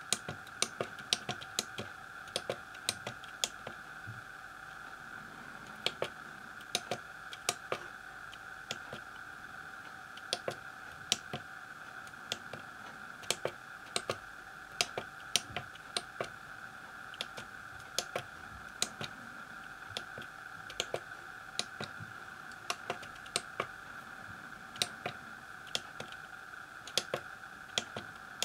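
Keys of an Elektronika MK-161 programmable calculator being pressed one at a time, entering a line of eForth code: irregular sharp clicks, a few per second with short pauses, over a steady faint high hum.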